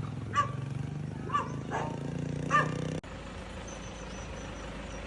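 Dogs barking, four short barks about a second apart, over a steady low hum. About three seconds in the sound cuts abruptly to a quieter steady hum.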